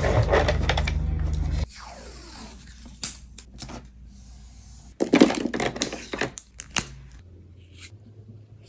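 Plastic alcohol markers being handled: a run of sharp clicks, scrapes and rattles, loudest about five to seven seconds in, with a steady low hum over the first couple of seconds.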